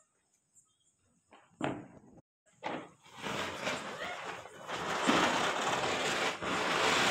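A ground firework (a Diwali fountain-type cracker) being lit: two short fizzes, then about three seconds in it catches and gives a steady hiss that grows louder as it sprays sparks.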